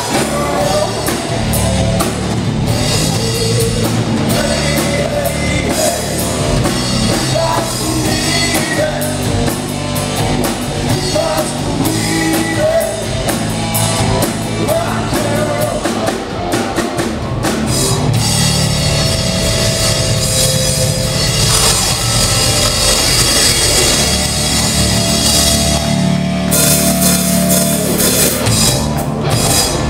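Live rock band playing loudly: electric guitars over a full drum kit, with the cymbals brighter and busier from a little past halfway.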